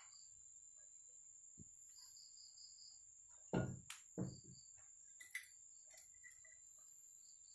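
Quiet hand work on a dismantled Yamaha Jupiter MX 135 engine: two short knocks of metal engine parts about three and a half and four seconds in, and a lighter click a little after five. A faint high chirping and a thin steady whine sit underneath.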